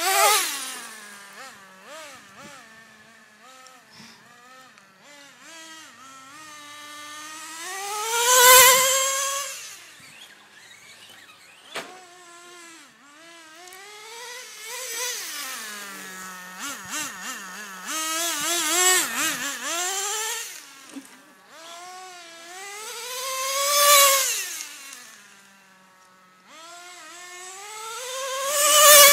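Nitro RC car's small two-stroke glow engine running at high revs as the car speeds up and down the street, passing close four times: each pass rises in pitch to a loud peak and then drops away. Between passes the engine pitch wavers up and down with the throttle.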